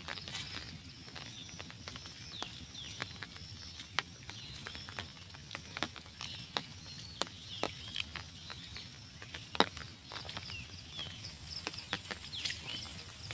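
Wet village outdoor ambience: scattered sharp taps and clicks at irregular intervals over a low hiss, with short high chirps and a steady high-pitched buzz.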